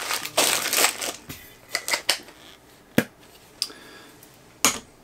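Plastic wrapping crinkling for about a second, then a handful of sharp clicks and taps, the loudest about three seconds in, as a Funko Soda collectible tin can is handled and set down.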